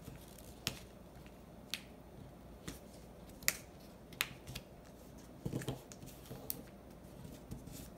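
Sheet of paper being folded and creased by hand: scattered sharp crinkles and clicks of the paper, about one a second, with a short cluster of them a little past halfway.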